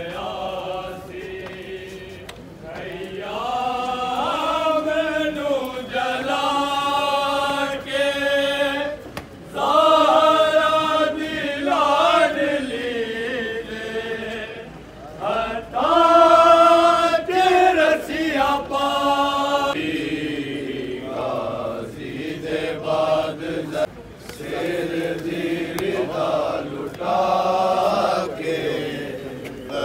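A group of men's voices chanting a Shia Muharram mourning lament (noha), sung in melodic phrases with short breaks between them.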